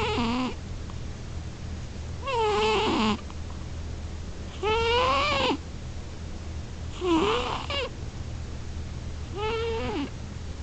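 Domestic cat snoring in its sleep: about five pitched, meow-like calls, one every two and a half seconds or so, each rising and then falling in pitch.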